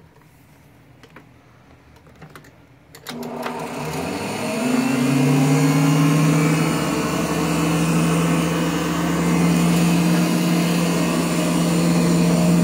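A few clicks, then about three seconds in a Nilco Fakir 271 commercial upright vacuum (a rebadged Clarke 500) is switched on. Its motor spins up with a rising hum and then runs steadily while it is pushed over carpet, not very loud for so large a machine.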